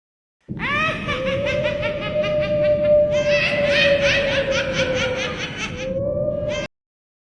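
Horror sound effect of eerie ghostly laughter: a rapid cackle of about five pulses a second over a steady held tone, starting about half a second in and cutting off abruptly near the end.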